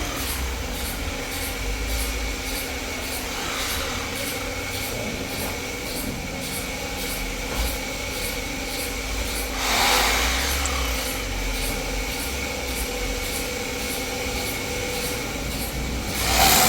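Sawmill machinery running steadily, with a constant high whine over a low hum. A louder surge of noise swells for about a second about ten seconds in, and again near the end.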